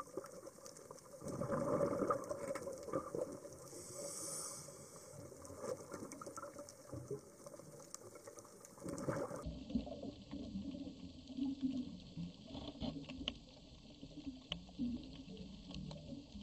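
Underwater reef sound of scattered clicks and crackles over a bubbling, hissing background. The background changes abruptly about halfway through.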